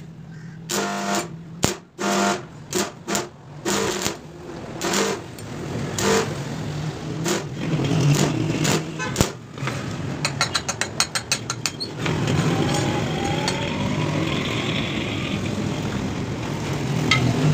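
Irregular hammer blows on steel, some of them ringing, with a quick run of light taps about ten seconds in. After that a motor runs steadily.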